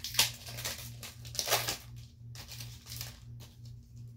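A Pokémon booster pack's foil wrapper being torn open and crinkled in the hands, in irregular sharp bursts that are loudest in the first two seconds, then lighter rustling.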